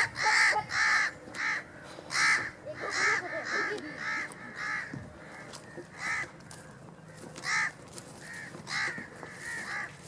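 Crows cawing over and over in short, harsh calls, about one or two a second, growing sparser after about five seconds.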